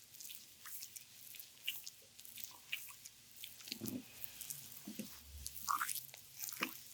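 Oiled hands kneading a bare belly during an abdominal massage: a steady run of small wet, sticky clicks and crackles of skin, with a few deeper squelches about four to six seconds in.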